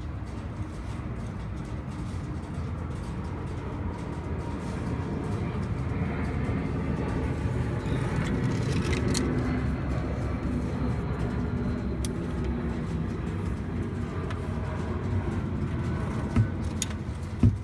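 Steady low rumble of road traffic, swelling about halfway through as a vehicle goes past, then easing.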